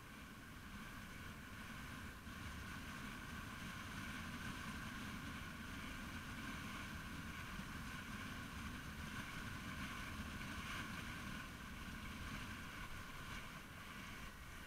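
Steady riding noise of a motorbike under way: wind rush and engine drone, with no sharp events, swelling a little through the middle and easing toward the end.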